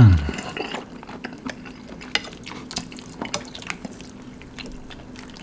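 Close-miked wet eating sounds: slurping and chewing spicy instant noodles with stretchy melted mozzarella, with many small smacks and clicks. A short hummed "mm" opens it.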